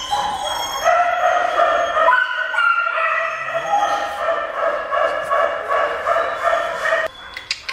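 Dog whining: a high, wavering whine that pulses for about six seconds and breaks off near the end.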